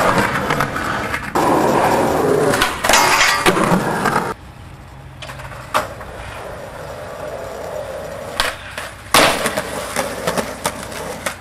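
Skateboard wheels rolling on concrete, with clacks of the board. The rolling drops away about four seconds in, leaving a quieter stretch broken by a couple of sharp knocks, then starts up loudly again just past nine seconds.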